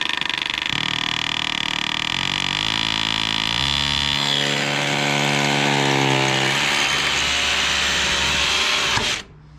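Power drill running under load, its pitch stepping up and down as the speed changes, then stopping abruptly about nine seconds in.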